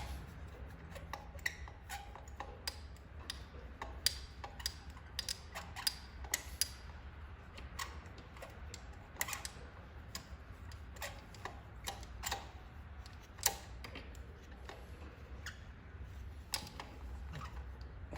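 Irregular sharp metal clicks and light clinks of hand tools working on the engine during a spark plug change, a few a second, over a low steady hum.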